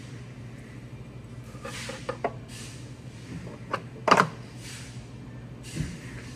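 Metal clinks and knocks of 4L60E transmission parts being handled and seated by hand at the front of the case, the loudest a ringing knock about four seconds in and a dull thump near the end, over a steady low hum.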